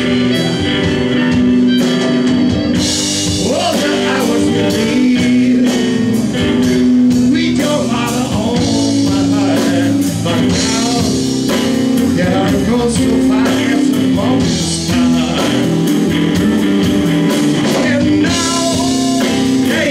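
Live blues-rock band playing: electric guitars, a drum kit and a harmonica played through a vocal microphone, with long held, wavering notes.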